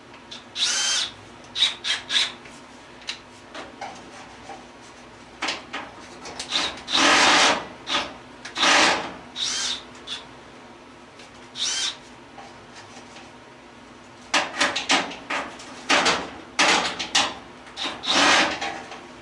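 Irregular short bursts of scraping and rattling as tools work at the metal fittings of an old gas stove, with a cluster of them near the end.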